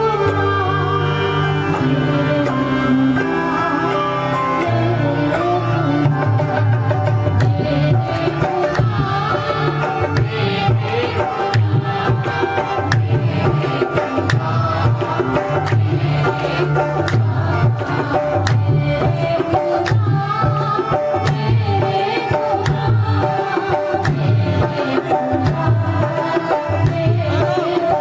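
Live devotional song: a woman singing over steady hand-drum strokes on a double-headed barrel drum, with a sustained accompaniment.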